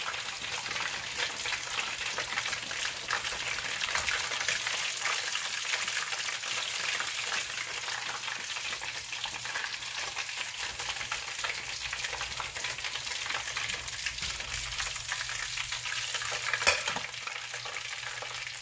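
Hot oil sizzling and crackling as panko-breaded ground-chicken patties deep-fry in a pan: a steady hiss with many small pops. One sharper click stands out near the end.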